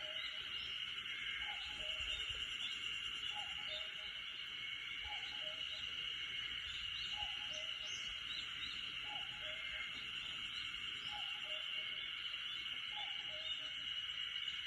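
Cuckoo calling "cuck-oo", two notes with the second lower, repeated about every second and a half, over a steady high-pitched hiss of forest background with faint chirps.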